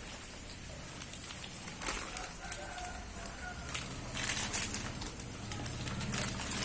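Steady rain, which gives way about two seconds in to irregular clicks and crackles with a few short, bird-like calls.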